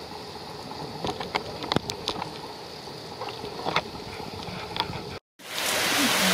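Steady rain falling, with a few sharp drips or taps in the first part. Near the end the sound cuts out for a moment and comes back as louder, heavier rain.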